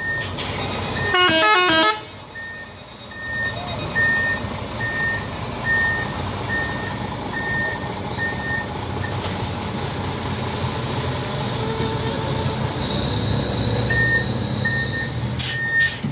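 A truck's telolet musical horn plays a quick run of stepping notes about a second in. Then a warning beeper sounds single beeps a little under a second apart, pausing in the middle and returning near the end, over the diesel engine running as the loaded truck pulls away.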